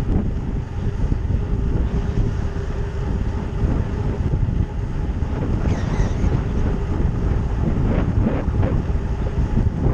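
Wind buffeting the microphone of a helmet-mounted GoPro on a bicycle riding at about 27 to 28 mph: a steady low rumble, with a few short gusts in the second half.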